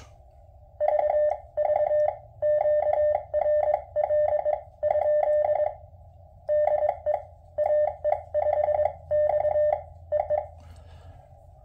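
QRP Labs QMX transceiver's CW sidetone from a powered speaker, keyed in Morse code with a paddle on 80 meters, with a thump on every dot and dash: the keying thump this radio shows worst on 80 m. Faint hiss fills the gaps between characters, and the sending stops about ten and a half seconds in.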